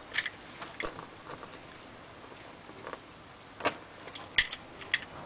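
A paper clip and a flattened-wire tension tool picking the wafer lock of a keyed gate latch: scattered small metallic clicks and scrapes as the wafers are worked, with a few sharper clicks in the second half.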